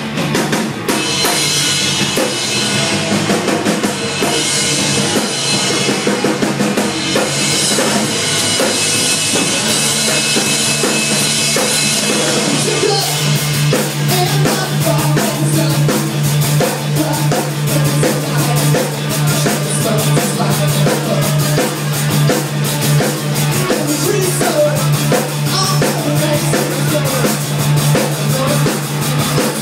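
Rock band playing, the drum kit prominent with kick, snare and rimshot hits. A bright cymbal wash fills roughly the first dozen seconds, then gives way to a steady low bass note under the drums.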